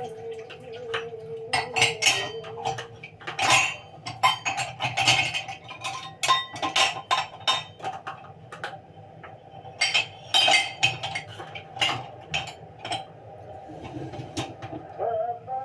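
Dishes and cutlery clinking and clattering irregularly as they are stacked into the racks of a dishwasher.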